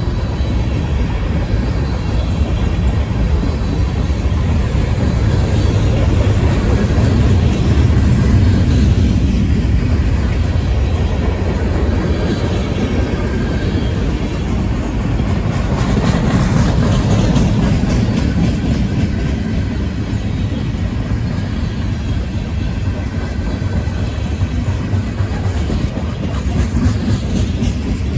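Freight train cars rolling past on the track: a loud, steady rumble of steel wheels on rail, with some clatter from the wheels.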